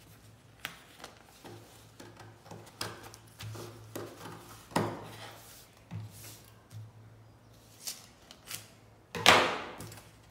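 Scissors snipping through a folded paper pattern in short, irregular cuts, followed by paper rustling as the cut pattern is handled, with a louder rustle about nine seconds in.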